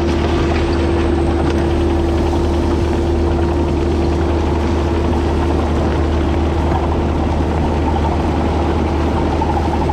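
Excavator's diesel engine running at a steady speed, a constant low hum with no revving or breaks.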